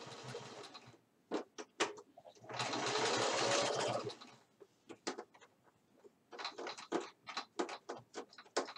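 Electric sewing machine stitching a buttonhole, running in short spurts. The motor runs steadily and stops about a second in, runs again briefly around the middle, then makes a quick string of separate clicks toward the end.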